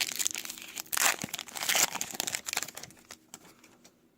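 Trading card pack's foil wrapper crinkling and tearing as it is torn open, stopping about three seconds in.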